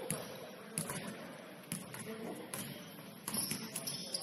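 Basketball bouncing on a gym floor, about five thuds roughly a second apart, over a low murmur of voices in the hall.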